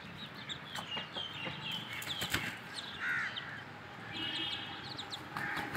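Aseel chickens clucking softly while feeding, with many sharp taps of beaks pecking feed off the ground.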